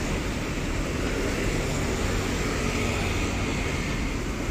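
A large intercity bus idling with a steady drone, with street traffic behind it.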